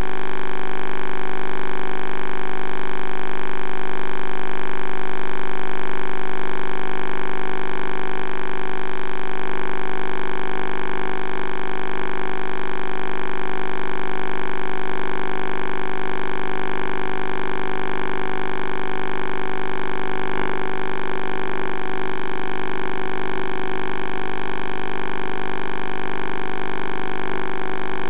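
Steady electronic hum and buzz made of many tones at once, electrical interference on the downhole well camera's audio feed, with a single faint click about two-thirds of the way through.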